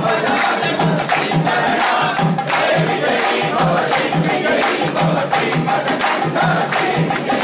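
Live devotional music: drums beating a steady rhythm under a crowd chanting together.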